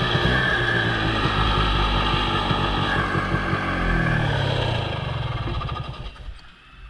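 Snowmobile engine running under way, its pitch falling as it slows about four seconds in, then dying away to a much quieter level near the end as the sled comes to a stop.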